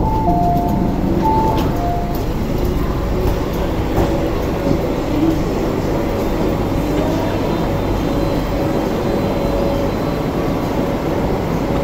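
Steady hum and rumble of an MTR S-train standing at the platform with its doors open, in a station with echoing walls. A two-note chime sounds twice near the start.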